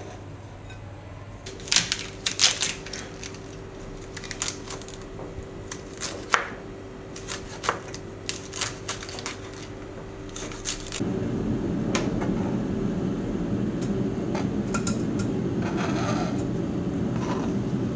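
Kitchen knife cutting through cabbage leaves onto a plastic cutting board in quick, irregular crisp chops. About eleven seconds in, a steady low rumbling noise starts and carries on under a few more chops.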